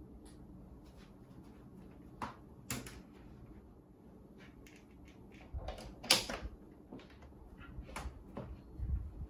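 Handling noises as a laptop is set down on a desk and its charger cable and plug are handled and plugged into a wall socket: a scatter of light knocks and clicks, the loudest about six seconds in.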